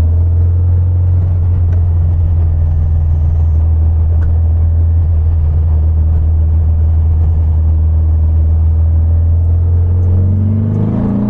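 A VW Super Beetle's 1915cc air-cooled flat-four engine is heard from inside the cabin while the car is under way. It makes a loud, steady low drone, and about ten seconds in its pitch starts to rise as the car accelerates.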